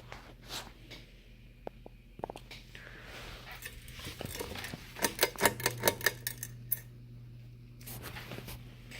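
Quorum Celtic ceiling fan running with a steady motor hum and scattered light clicks, and a quick run of sharp clicks just past the middle. The fan is slightly off balance.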